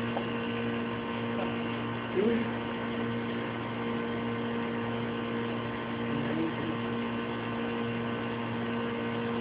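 Steady machine hum at a constant pitch, like an engine running at idle, with a brief faint voice about two seconds in.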